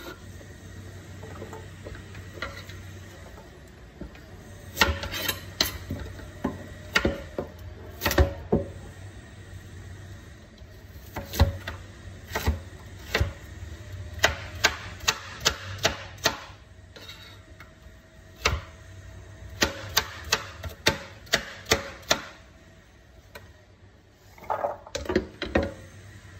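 Chef's knife chopping carrots into cubes on a cutting board: sharp knocks of the blade hitting the board, in runs of several strokes about two to three a second with pauses between.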